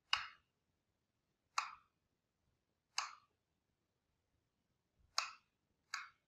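A mallet striking the handle of a wood-carving gouge, driving it into the wood: five sharp knocks at an uneven pace, each dying away quickly.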